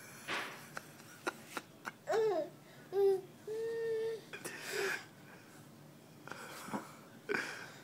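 Toddler babbling in a few short high-pitched vocal sounds, clustered about two to five seconds in, between breathy huffs and small clicks.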